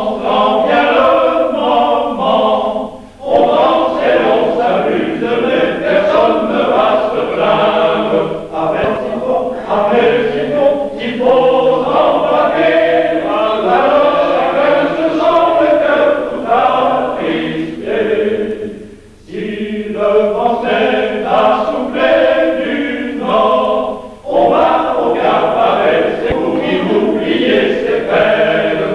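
Men's choir singing in parts, breaking off briefly between phrases three times.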